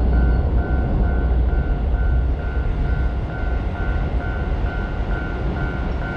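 Railroad crossing warning bell clanging in an even rhythm, about twice a second, over the loud low rumble of a Seibu Line train passing through the crossing.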